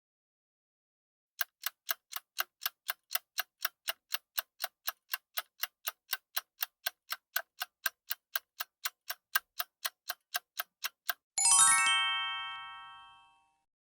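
Countdown timer's end alarm: quick, even clock-like ticking, about four ticks a second for some ten seconds, then a single bright bell-like chime that rings out and fades over about two seconds, marking the timer's end.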